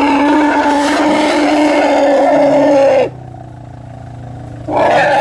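A motor vehicle's engine running steadily at high revs, dropping sharply to much quieter about three seconds in and picking up again near the end.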